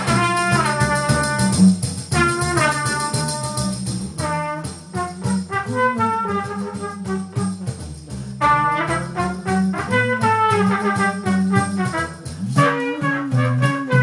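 Trumpet playing a melody over guitar accompaniment, with a steady rhythmic beat underneath; the trumpet's phrases fall in pitch near the start.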